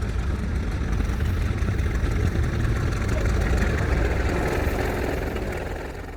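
1911 Avery 18hp steam traction engine driving a sawmill under load: a steady, heavy low rumble of the engine and belt-driven mill with a noisy machinery clatter over it, fading near the end.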